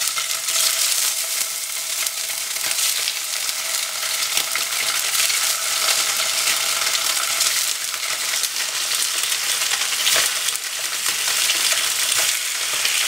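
Slices of extra-firm tofu sizzling steadily in hot oil in a stainless steel frying pan as more slices are laid in one after another.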